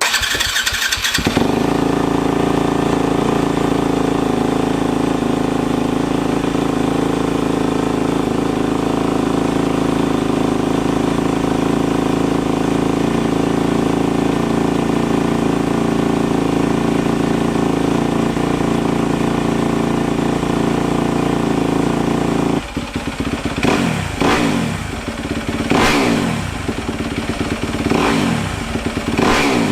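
Yamaha YZ250F single-cylinder four-stroke dirt bike engine starting up and idling steadily, run after an oil change to circulate the fresh oil. In the last seven seconds the throttle is blipped about four times, the revs rising and falling each time.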